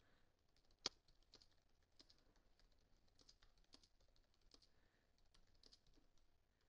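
Faint typing on a computer keyboard: a quick run of light key clicks, with one sharper click about a second in.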